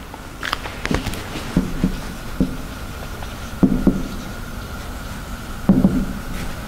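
Marker pen writing on a whiteboard: short scratchy strokes and taps coming in several clusters as letters are written, over a faint steady high hum.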